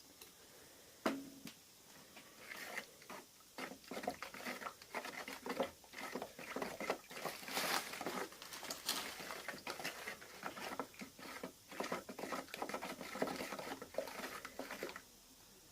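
Wet gypsum plaster paste being stirred in a container with a spatula: rapid, irregular scraping and squelching clicks that stop shortly before the end.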